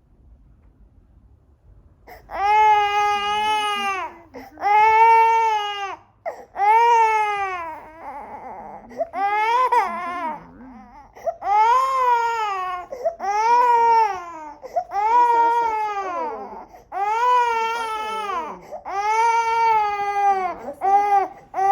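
A five-month-old baby crying hard in a string of about ten wails, each one to two seconds long and rising then falling in pitch, starting about two seconds in.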